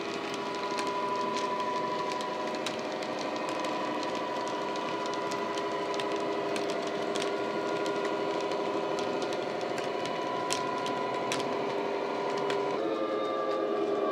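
Model Class 66 diesel locomotive sound from an ESU LokSound decoder played through a small speaker: a steady engine drone, with sharp clicks from the model wagons' wheels running over the track. The engine note shifts to a new pitch about thirteen seconds in.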